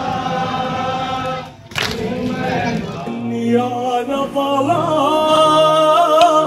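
Male voices reciting a nauha, a chanted Muharram lament, in chorus, breaking off about a second and a half in. From about three seconds, music with long held notes.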